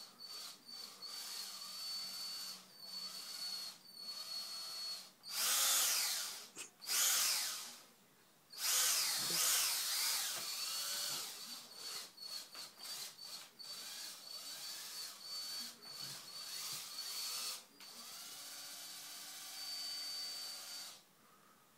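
Yellow cordless drill/driver motor whirring in many short start-stop runs, its pitch rising and falling as the speed changes. It stops just before the end.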